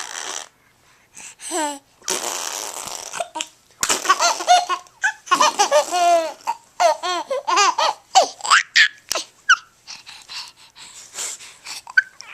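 A baby laughing in a string of short, high-pitched squeals and breathy giggles.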